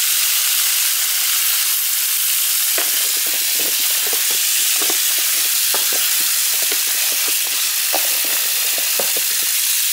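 Kitchen tap running in a steady stream onto cut potatoes in a large pan as a hand swishes them around to rinse them. From about three seconds in, the potato chunks knock and splash against each other and the pan.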